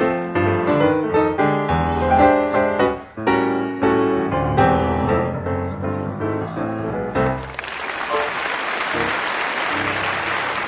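Piano playing a classical-style piece in chords, which ends about seven seconds in; an audience then breaks into applause.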